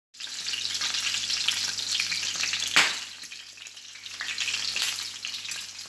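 Steam-cooked lamb leg sizzling as it fries in hot oil in a pan, with one sharp knock about three seconds in.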